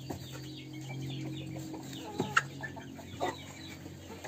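Chickens clucking in short scattered calls over a low steady hum in the first half, with one sharp, loud sound about two seconds in.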